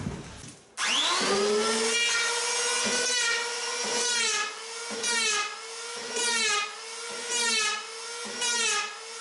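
Handheld electric power planer starting about a second in, its motor winding up to a steady whine. It then makes a string of short cutting passes across a wooden strip, about one a second, with the pitch dipping under load on each cut.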